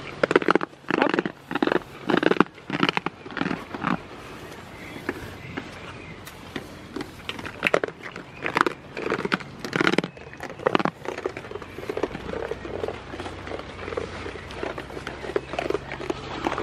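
Goat nibbling and nuzzling right on the camera microphone: irregular crackling, rubbing and crunching, thickest in the first few seconds and again around the middle, thinning to lighter ticks near the end.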